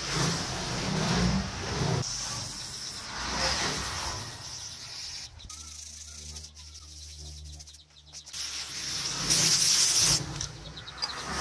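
Carbon deposits being scraped off the metal of a G160 engine's combustion chamber: repeated rough scraping strokes, with a steady low hum for a few seconds midway and a loud hiss near the end.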